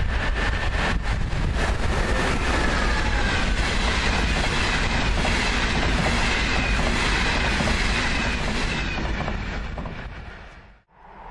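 ČD railjet passenger train running through at speed: a steady rush of wheels on rail, with clicking over rail joints as it comes in and a thin high whine over the rail noise. The sound fades away near the end.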